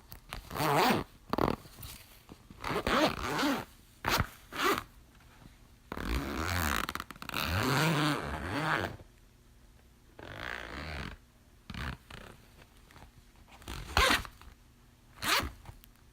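A clothing zipper being zipped and unzipped in a series of separate pulls. Quick, short zips are mixed with a few longer pulls of about a second in the middle.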